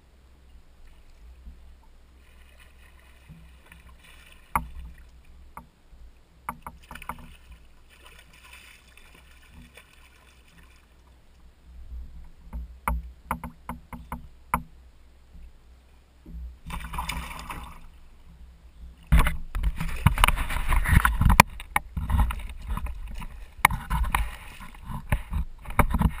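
A spinning reel winding in a hooked fish, with scattered sharp clicks and knocks on the kayak. From about two-thirds in, loud splashing as the fish thrashes at the surface beside the kayak.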